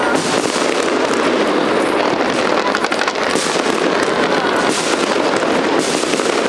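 A fireworks barrage fired from the sides of a skyscraper: continuous dense crackling and popping, with many small reports running together without a pause.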